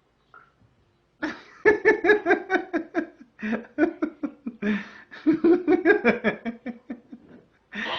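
Laughter in several runs of quick, rhythmic bursts with short breaks between them.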